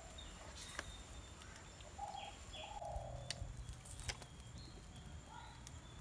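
Birds calling twice in quick succession about two seconds in, over faint outdoor background, with a few sharp clicks scattered through.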